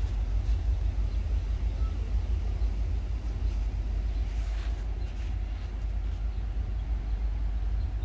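Wind buffeting the microphone: an uneven low rumble that rises and falls without any steady pitch.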